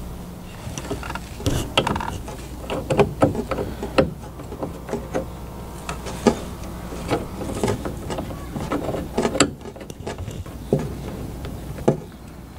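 Plumbing fittings being handled and fitted by hand: irregular clicks, taps and knocks of metal and plastic parts, several a second.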